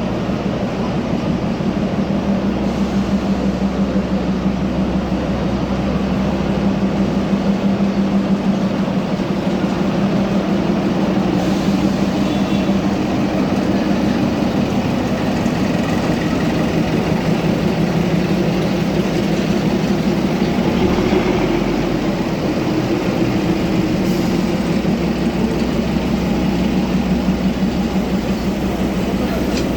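Darjeeling Himalayan Railway narrow-gauge toy train running: a steady rumble with a constant low hum.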